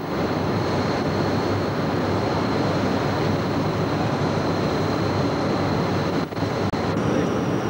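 Steady, loud rushing of the churning wake astern of a Project 207M minesweeper under way, with the ship's machinery rumbling beneath it and a thin steady high whine on top. The noise briefly drops a little after six seconds.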